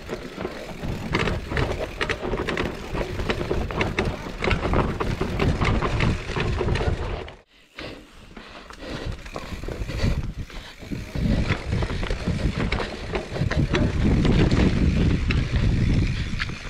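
Mountain bike riding down a rough dirt singletrack: tyre noise on dirt and roots with the rattle and clatter of the bike over bumps, and a steady low rumble. The sound nearly cuts out for a moment about seven seconds in, then picks up again.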